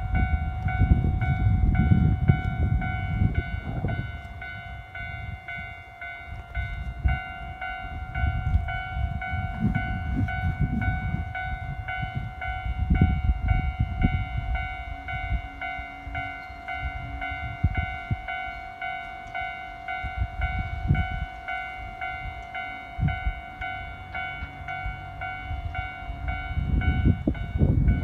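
A level-crossing warning bell ringing, a steady, evenly repeated electronic ding, while wind buffets the microphone with gusty low rumbling.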